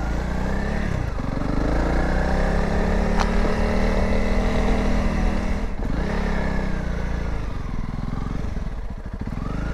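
Honda CRF300 Rally's single-cylinder four-stroke engine being ridden, its pitch rising and falling with the throttle and easing off briefly about a second in and again near six seconds. A single sharp click about three seconds in.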